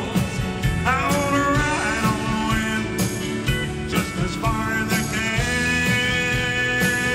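Live country-rock band song: a man singing lead vocals while playing acoustic guitar, over a steady beat.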